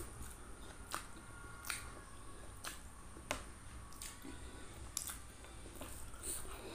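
Wet lip smacks and sucking as a person licks spicy sauce off her fingers: a series of sharp separate smacks, roughly one a second.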